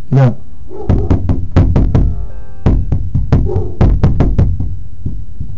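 Rapid knocking on a glass storm door, in irregular bursts of several knocks each, with a brief ringing tone about two seconds in.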